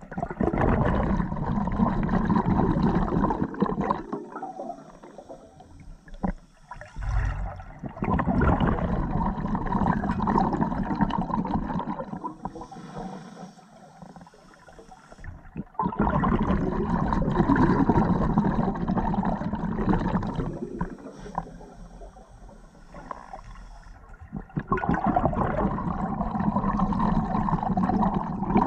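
Scuba diver breathing through an open-circuit regulator underwater: four long bursts of exhaled bubbles gurgling, about eight seconds apart, with a soft hiss of inhalation through the regulator in the quieter gaps.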